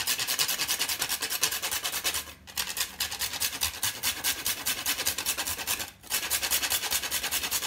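Whole nutmeg grated on a handheld flat metal grater: quick, even rasping strokes, with brief pauses about two and a half and six seconds in.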